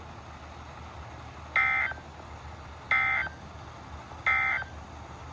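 NOAA Weather Radio SAME data bursts: three short bursts of warbling data tone a little over a second apart, the end-of-message code that closes the weekly test, over a steady low hum and faint radio hiss.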